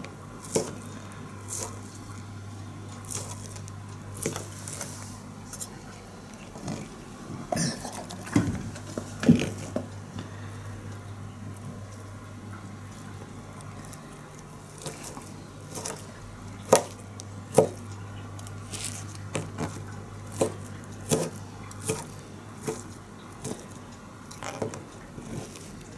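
Kitchen knife chopping a soft roll of meat dog food into cubes, knocking irregularly on a plastic cutting board, over a steady low hum.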